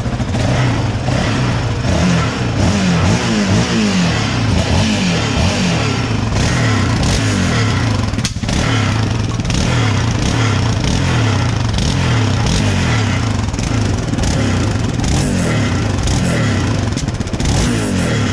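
The single-cylinder engine of a 2019 Yamaha Raptor 700 ATV running, its speed rising and falling in repeated throttle blips over the first several seconds. Under it is a rattle from inside the muffler, which the mechanics put down to something loose inside it.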